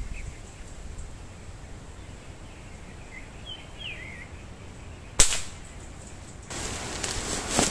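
Wind rumbling on the microphone, with a few short bird chirps, then a single air rifle shot about five seconds in, a sharp crack that is the loudest sound. Near the end a loud rustling hiss sets in.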